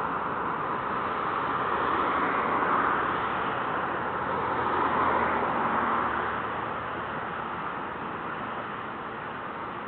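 Road traffic passing: a steady rush of tyres and engines that swells twice as vehicles go by and eases off about six seconds in.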